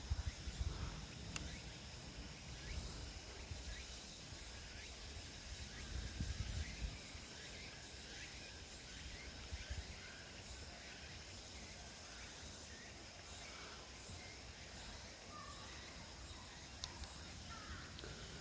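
Faint forest ambience on a mountain trail: a steady high insect hum with scattered small chirps, and low rumbles on the microphone about a second in and again around six seconds.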